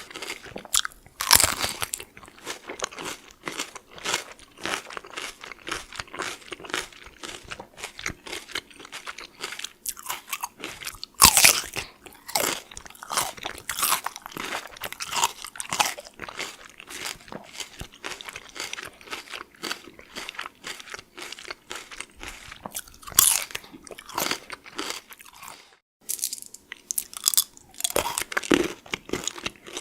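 Close-up chewing of raw cucumber: dense, crisp crunching, with loud bites about a second and a half in, about eleven seconds in and about twenty-three seconds in. After a brief silence near the end, crunching of M&Ms candies begins.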